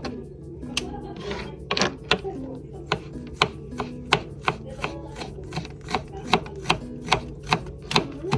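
Kitchen knife chopping on a cutting board: a steady run of sharp taps, about three a second.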